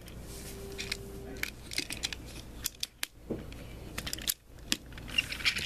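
Hands handling small toy train engines on carpet: scattered light clicks, knocks and rubbing as the toys are picked up and moved.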